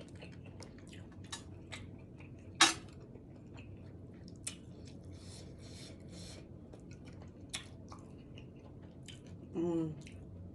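Close-up eating of a seafood boil: wet chewing and lip smacks with sharp clicks, the loudest about a third of the way in. A short hummed vocal sound comes near the end.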